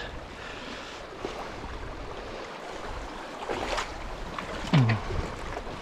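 River water moving around a small boat, with wind noise on the microphone. A couple of faint knocks come around the middle, and a short low sound falls in pitch near the end.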